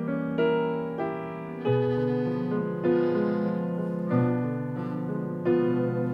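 Slow instrumental passage played live by a small chamber-jazz ensemble of piano, double bass and strings. Piano chords are struck about every one and a quarter seconds, each ringing on under held string notes, with no singing.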